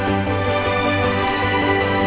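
Background music with sustained chords and a steady low bass note.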